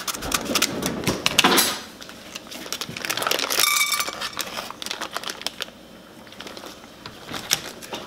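Paper microwave popcorn bag being snipped open with scissors and rustled, loudest in the first two seconds, followed by scattered small clicks as unpopped kernels drop into the saucepan near the end.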